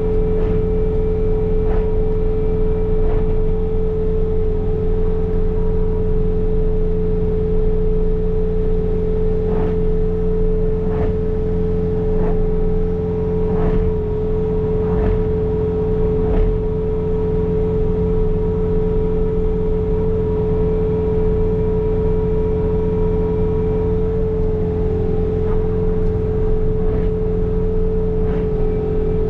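Bobcat T66 compact track loader with its snow blower attachment running steadily: a constant engine drone under a strong, even whine. A few short knocks come through in the middle.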